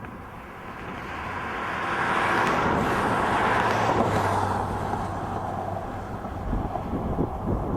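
A road vehicle passing by: tyre and engine noise swells, peaks around the middle, then fades, over a steady low hum. A few low thumps follow near the end.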